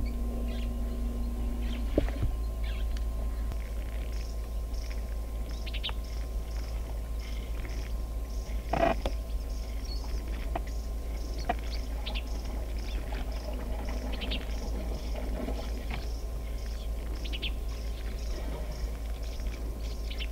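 Small birds chirping in the bush, short high calls repeating again and again over a steady low hum, with one louder short sound about nine seconds in.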